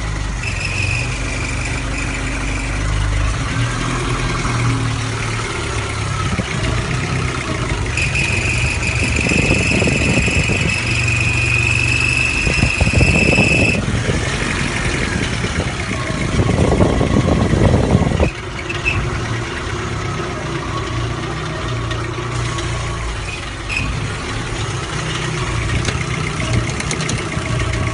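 VW Golf II's 1.8-litre RP four-cylinder engine running with a high-pitched squeal. The squeal sounds briefly near the start and then steadily for about six seconds in the middle, while the engine noise grows louder and rougher for a while before settling back.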